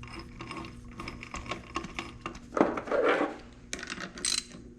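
Honda CR85 transmission gears and shift mechanism turned by hand while in third gear: light metallic clicking and ratcheting, with a louder rattle about three seconds in and sharp ticks near the end. There are no clunks, which the owner takes as the sign that the gears are good.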